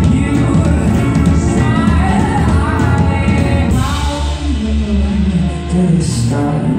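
A live band playing, with voices singing over bowed strings, acoustic guitar and drums. About four seconds in the singing drops back, leaving a steady low pulse and a held low string line.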